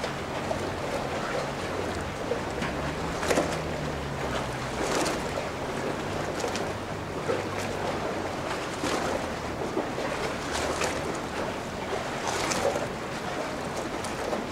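Water lapping and splashing in irregular surges, with wind on the microphone, over a low steady engine hum.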